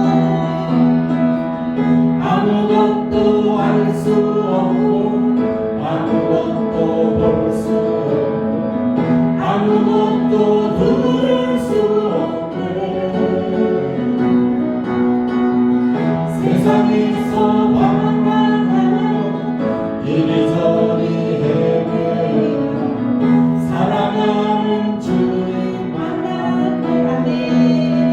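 Live worship music: a band with guitar plays a slow praise song while several voices sing along. Sharp percussion hits fall every second or two.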